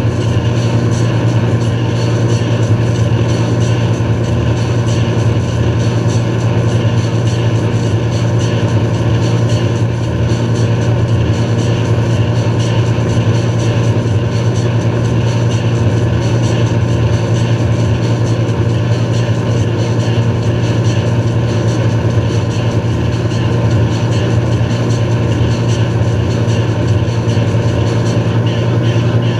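Tow boat's engine running steadily at wake-surfing speed, a constant low drone, with the rush of churning wake water over it.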